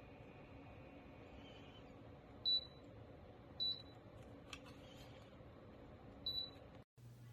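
Three short, high electronic beeps from a humidifier's control panel as its buttons are pressed, over a faint steady hum; the sound cuts out abruptly near the end.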